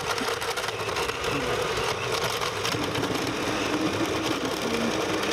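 Countertop blender with a glass jar running steadily, blending a smoothie of fruit and leafy greens.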